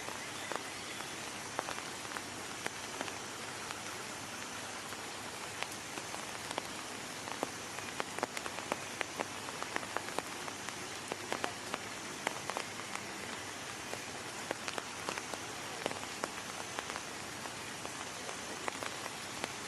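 Steady rain falling, an even hiss with many scattered, irregular ticks of single drops striking.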